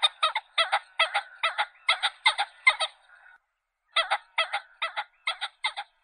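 Common pheasant calling: a rapid run of short, repeated call notes, about four a second. The run breaks off a little after three seconds in, then starts again.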